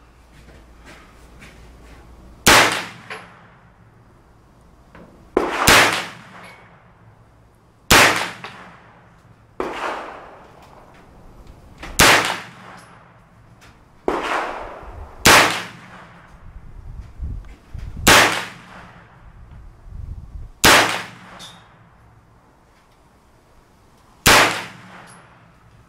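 A CMMG MK9T 9mm AR-15-style carbine firing eight single, deliberately spaced shots, one every two to four seconds, each a sharp, loud crack with a short ringing tail. A few fainter bangs fall between the shots.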